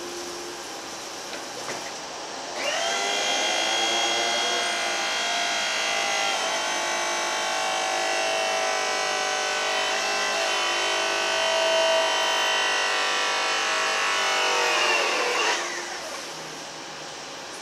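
Electric hydraulic pump motor of a Hyster E3.00XM electric forklift whining steadily as the mast lifts the forks to full height. The whine rises in pitch as it starts about two and a half seconds in, holds, and winds down in pitch near the end, with a quieter hum before and after.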